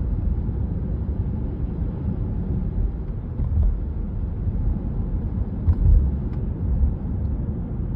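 Steady low rumble of a car's engine and tyres on the road, heard from inside the cabin while driving, with a few faint clicks in the middle.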